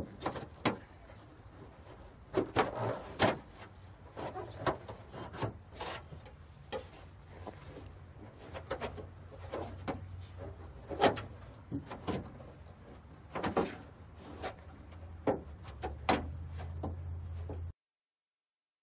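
Irregular knocks, taps and clicks of tools worked against a car hood during paintless dent repair, over a low steady hum. The sound cuts off suddenly near the end.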